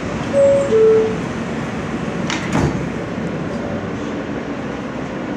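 R160 subway car's two-note door chime, a higher tone then a lower one, followed about two seconds later by the clunk of the sliding doors, over the steady rumble of the car.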